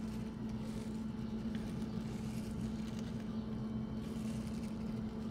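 Steady background machine hum with one low tone held throughout.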